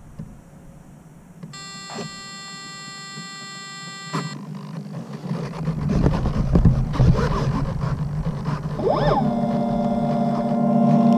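A steady electronic beep for nearly three seconds, the flight controller's arming tone. Then wind rush and handling knocks as the plane is hand-launched. About nine seconds in, the brushless motor and folding propeller spin up and run with a steady hum.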